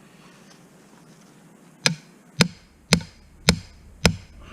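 Hammer blows on steel: five sharp, ringing strikes about half a second apart, starting about two seconds in, driving a steel piece into a tight drilled hole.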